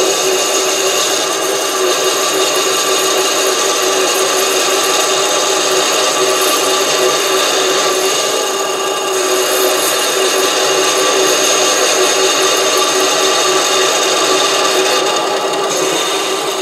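SC2 mini lathe running while a parting tool is fed steadily into a spinning aluminium rod: a steady machine tone from the lathe with the scraping noise of the cut, parting off the bar.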